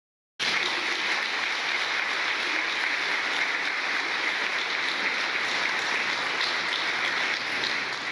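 Crowd applauding: dense, steady clapping that starts abruptly about half a second in and begins to fade near the end.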